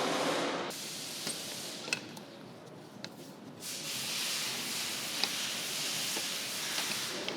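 Hissing of gas at the air-conditioning compressor's refrigerant line fitting as it is undone, louder for a moment at the start and steady again through the second half, with a few light ticks of the tool.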